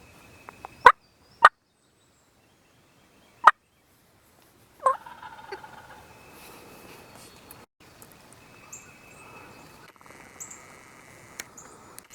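Wild turkey gobbler gobbling: four short, loud gobbles in the first five seconds, then only faint background sound.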